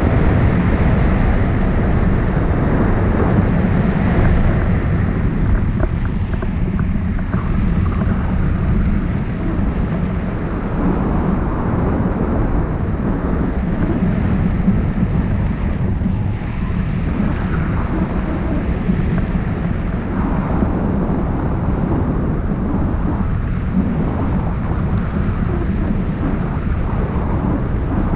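Wind rushing over the microphone of a camera mounted on a hang glider's wing in flight: a steady, loud, rumbling rush of airflow with no break.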